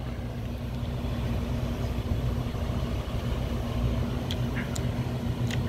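A steady low engine drone, as of an idling vehicle, holding one constant tone throughout; a few faint ticks come near the end.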